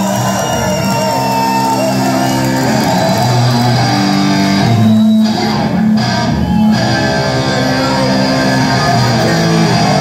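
Live rock band playing loudly, an electric guitar to the fore over bass and drums.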